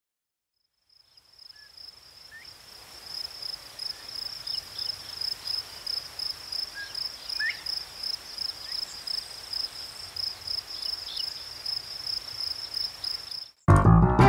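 Night crickets chirping in a steady, evenly pulsed high trill that fades in about a second in, with a few faint short chirps underneath. Near the end it cuts off sharply as loud music starts.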